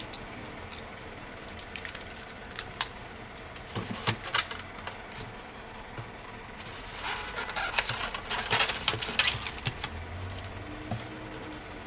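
Handling a diecast Vermeer Terrain Leveler scale model: scattered small clicks and knocks, then a dense stretch of rubbing and scraping from about seven seconds in, lasting some two seconds, as it is set into its polystyrene foam packaging tray.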